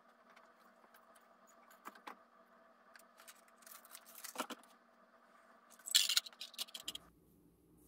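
Scattered clicks, light knocks and rustles of items being handled and set into a wire pet cage, with a louder burst of rustling and scraping about six seconds in. A faint steady hum underneath stops abruptly about seven seconds in.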